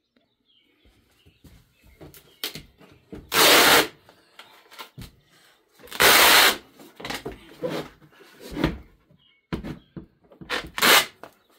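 Hard plastic parts of a cat exercise wheel being pried and worked apart by hand: faint clicks and knocks, with a few loud scraping rasps, two of them about half a second long near the middle.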